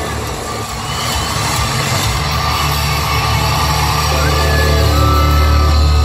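Hard-rock band playing live through a large PA, heard from within the crowd: a held, distorted low guitar and bass chord that grows louder in the second half, with a thin high guitar-feedback tone ringing over it.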